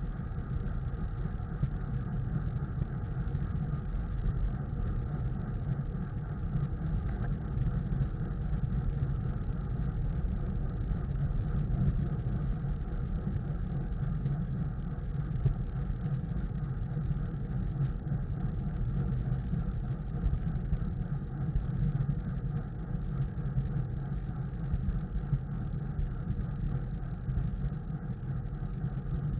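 Wind buffeting the microphone of a camera on a moving road bicycle: a steady low rumble.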